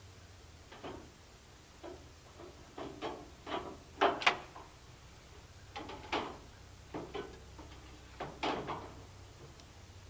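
Caulking gun worked in a series of short squeezes, each a brief click or creak, irregularly spaced and loudest about four seconds in, as sealant is laid around a stove pipe's flashing on a metal roof.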